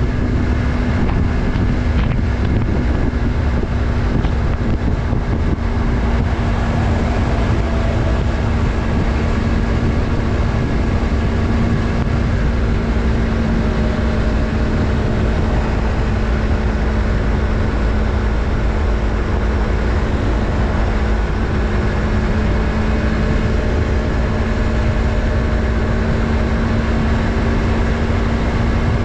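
Yamaha MT-03's 321 cc parallel-twin engine running at a steady speed while the motorcycle cruises, with the engine note held almost constant. Wind rush on the camera microphone adds a heavy low rumble.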